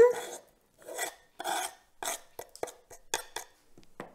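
Knife blade scraping across a wooden cutting board in a series of short, irregular strokes, pushing chopped chili off the board into a plastic bowl.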